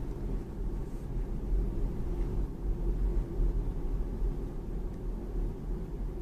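Low, steady road and tyre rumble inside the cabin of a moving BMW 3 Series (G20).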